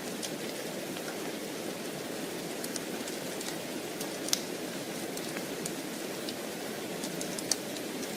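Steady rain hiss with scattered sharp crackles and pops from a wood fire in a fireplace; the two loudest pops come about four seconds in and near the end.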